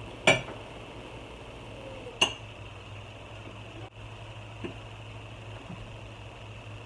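Metal forks clinking against plates and a sauce bowl during a meal: two sharp clinks about two seconds apart, then a fainter tick, over a steady low hum.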